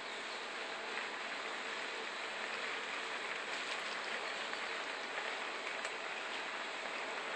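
Spring water poured from a bowl over a person's bent head, splashing and pattering steadily onto the ground.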